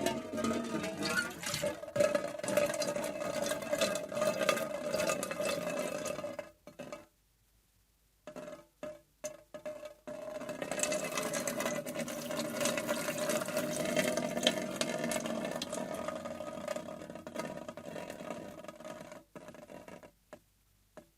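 A stream of water splashing against a hard object, a steady rush with a held ringing tone. It cuts off about six and a half seconds in, comes back as a few short spurts, then runs steadily again before sputtering out near the end.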